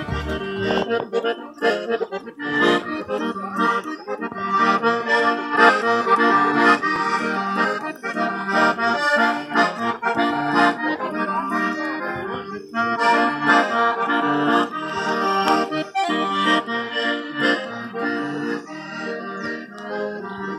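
Accordion played solo: a melody over held chords, with the notes changing throughout.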